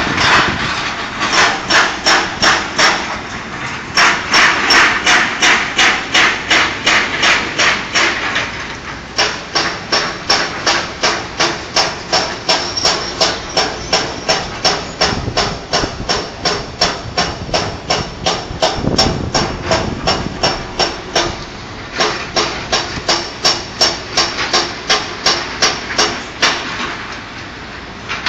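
Construction-site hammering: a steady series of sharp, loud blows about three a second, such as an excavator-mounted rock breaker makes on a slope, stopping briefly twice before starting again.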